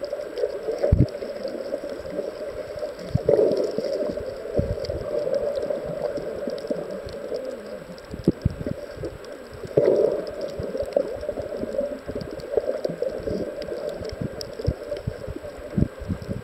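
Muffled underwater noise picked up through a camera's waterproof housing: a steady rushing hiss of water that swells twice, with irregular low thuds and knocks.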